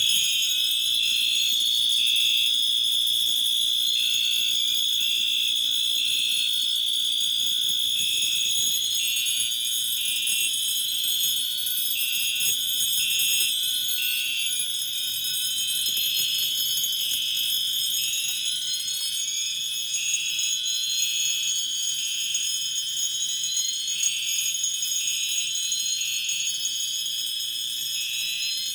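Several fire alarm signals sounding together: a steady high-pitched tone, rising whoop sweeps repeating about every two seconds, and intermittent beeps.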